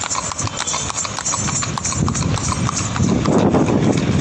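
Horse's shod hooves clip-clopping on an asphalt road in a steady rhythm. A low rumble swells beneath them about two seconds in.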